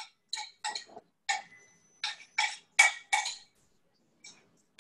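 A spatula scraping melted chocolate out of a glass bowl: a run of about ten short scrapes and taps against the glass, with a pause before a last faint one near the end.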